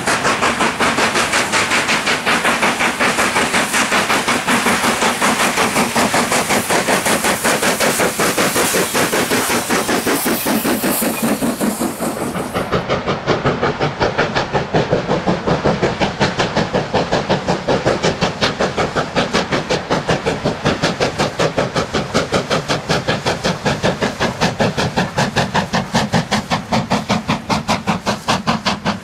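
Steam locomotive exhaust beats: a BR Standard 4 4-6-0 working hard with a fast, regular chuff, then from about twelve seconds in a Black 5 4-6-0 chuffing steadily as it hauls its train of carriages past.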